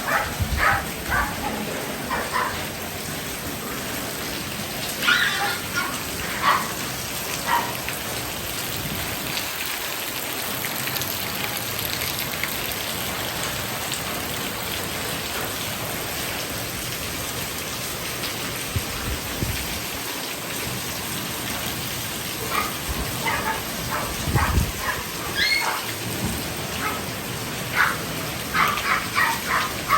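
Steady rain falling, with dogs barking and yelping in short bursts: near the start, around five to seven seconds in, and through the last eight seconds. A low thump comes about twenty-four seconds in.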